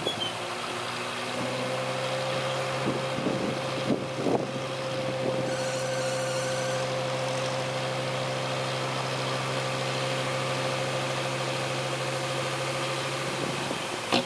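A diesel engine of a heavy machine running at a steady speed. Its note comes in about a second and a half in and drops away shortly before the end, with a few short knocks over it in the first seconds.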